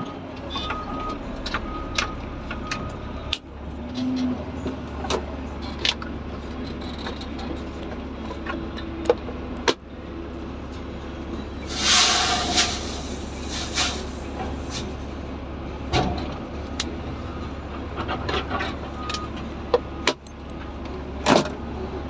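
Caterpillar 730C articulated dump truck heard from inside its cab while driving: the diesel engine's steady low drone, with frequent short clicks and knocks, and a loud hissing burst about twelve seconds in.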